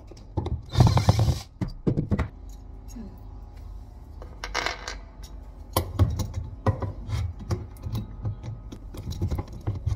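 Small metal parts clinking and clattering: a steel cabinet hinge and its screws being handled and fitted, with many sharp little clicks. Two short louder noisy bursts come about a second in and near the middle.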